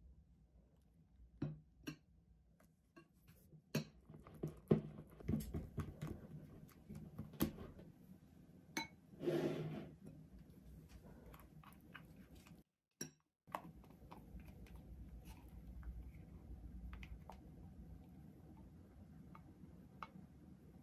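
A spatula scraping and tapping against glass mixing bowls while batter is folded, with scattered light clinks and a longer scrape about nine seconds in.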